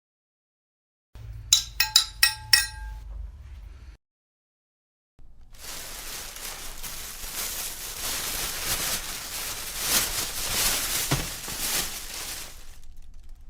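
A quick run of about five sharp metallic clinks with ringing tones, then, after a second of silence, a long rough scraping noise lasting about eight seconds that swells and then fades away.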